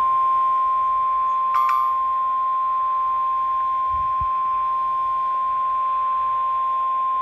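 NOAA Weather Radio 1050 Hz warning alarm tone: one steady, unbroken high tone heard over a weather radio receiver, signalling that an emergency warning is about to be read. A brief click comes about a second and a half in.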